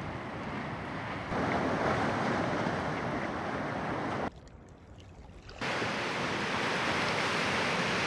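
Lake Superior waves washing and breaking against shoreline rocks, with some wind. The surf gets louder about a second in, drops away for about a second past the middle, then comes back.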